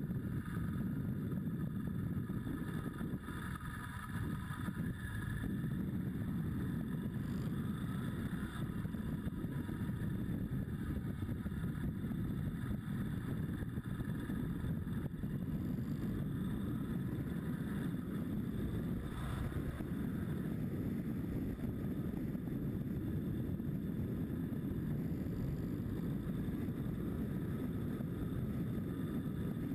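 Motorcycle engine running at road speed with wind noise on the microphone, a steady low-pitched sound.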